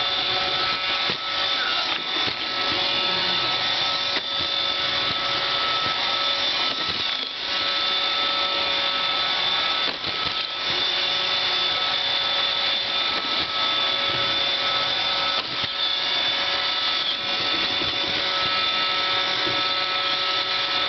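iRobot Roomba 550 robot vacuum running: a steady motor and brush whine with constant high tones, broken a few times by brief dips and knocks.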